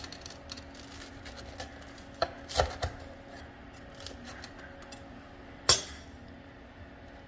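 Chef's knife slicing through crispy-crusted focaccia on a wooden cutting board: a run of small crackling crunches from the crust, with a few sharp knocks of the blade against the board, the loudest a little past halfway.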